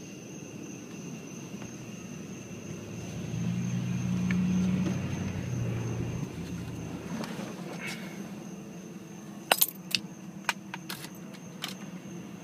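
Audi A4 B7 engine running with a steady low hum that swells louder for a few seconds in the middle, then a few sharp clicks near the end.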